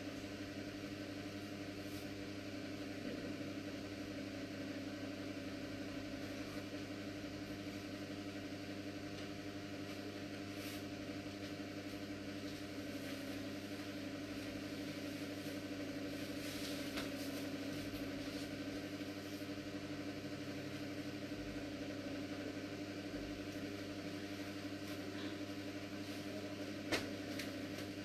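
Steady low electrical hum, with a single short click about a second before the end.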